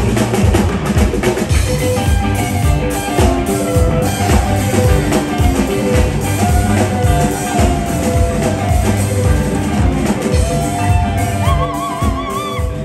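Live Congolese Afro-rock band playing an instrumental passage: electric guitars over bass guitar, drum kit and hand drum, with a steady beat. A held, wavering high note comes in near the end.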